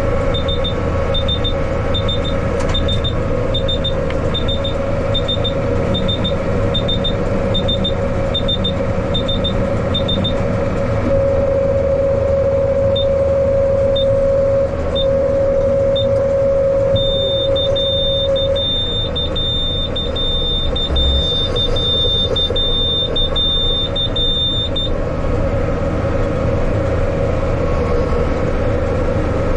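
Yanmar tractor running steadily with a steady mid-pitched whine, while a high electronic warning beeper sounds: paired beeps about once a second for the first third, then a few single beeps, then a continuous tone for about eight seconds before it stops.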